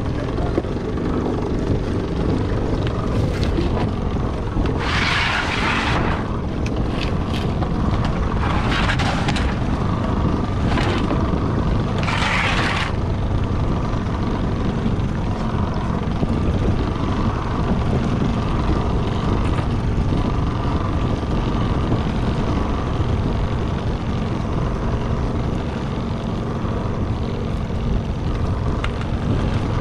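Small boat's motor running steadily as a low rumble, with wind on the microphone. Three short bursts of hiss come about five, nine and twelve seconds in.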